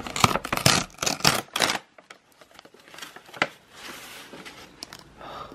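Rustling and crinkling of a drawstring bag being opened and handled to pull out a takeaway coffee cup. A dense flurry of rustles fills the first two seconds, then quieter rustles follow, with one sharp click about three and a half seconds in.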